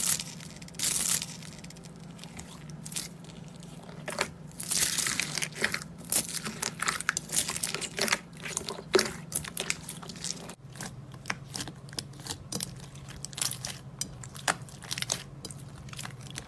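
Slime being squeezed and pressed by hand, giving a dense run of crackles, crunches and pops, over a faint steady low hum.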